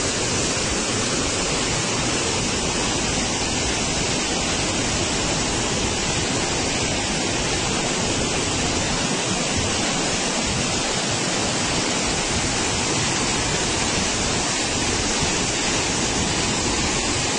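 Floodwater rushing through the Roseires Dam's open spillway gates, a steady, unbroken roar of falling water and spray. Six gates are open to pass the high inflow of muddy floodwater.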